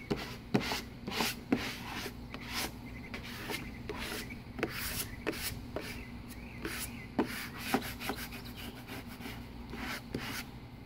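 Plastic squeegee rubbing in short, uneven strokes over the transfer paper of a wet-applied vinyl decal on a car body panel, pushing out water and air bubbles.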